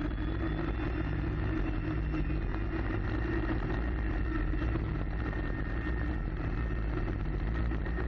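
Engine of the Ultra Heavy-lift Amphibious Connector (UHAC) half-scale prototype running steadily, heard from on board the craft. It is a constant low drone at unchanging pitch.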